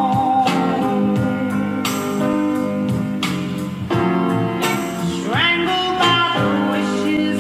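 A song with singing and guitar playing through a homemade toolbox boombox's speakers, the box lined with added fiberglass insulation to deepen its sound. A sung note slides upward about five seconds in.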